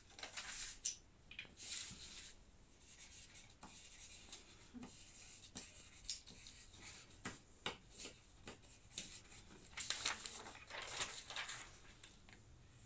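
Paper rustling as a sheet is moved, then the scratching of writing on paper in short irregular strokes. The busiest, loudest run of strokes comes about ten seconds in.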